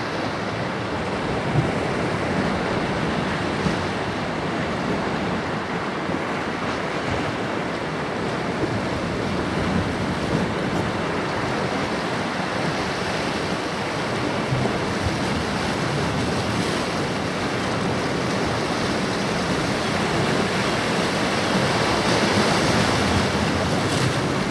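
Sea waves washing and breaking against a rocky shore, a steady rushing surf that swells slightly near the end.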